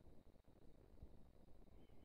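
Near silence: quiet forest ambience with faint low rumble and a few soft clicks, and a faint short high call near the end.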